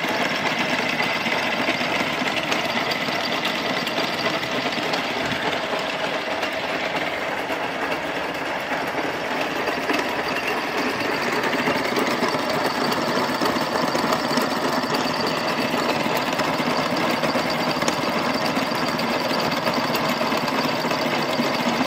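Vertical milling machine running steadily with a fast, even mechanical rattle, at the end of a face-milling pass on an aluminium cylinder head.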